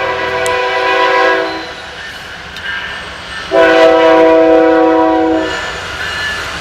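A multi-note horn sounding long, steady chord-like blasts: one dies away about a second and a half in, and a second of about two seconds starts halfway through.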